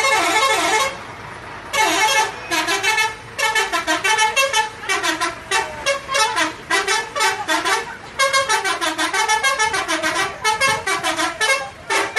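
Bus 'telolet' horn, a multi-tone musical horn, playing a rapid warbling tune of short notes that rise and fall in pitch over and over. There is a brief break about a second in.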